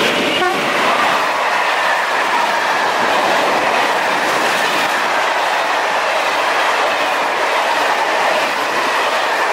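Freight train passing close by: an SNCF Fret electric locomotive followed by a long string of empty stake flat wagons. Steel wheels make a steady rolling noise on the rails, with faint high tones over it.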